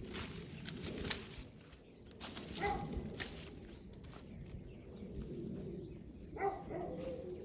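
Pruning shears snipping and vine branches rustling, several sharp clicks about a second apart, with two short animal calls, one early and one near the end.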